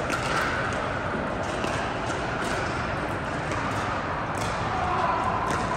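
Steady background noise of a large indoor sports hall, with a few faint sharp taps scattered through it.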